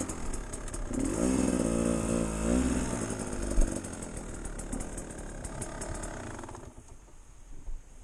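Dirt bike engine revving, its pitch rising and falling over a couple of seconds, then dying away near the end.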